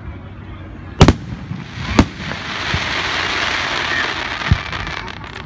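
Aerial fireworks display: two sharp shell bursts about a second apart, then a steady hiss for about three seconds, with a weaker bang near the end.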